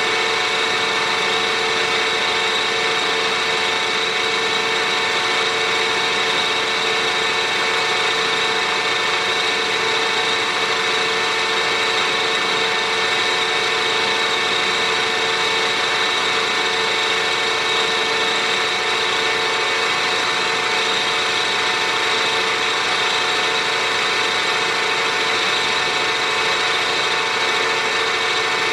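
Milling machine motor and spindle running steadily with a constant whine, taking a cut in cast iron.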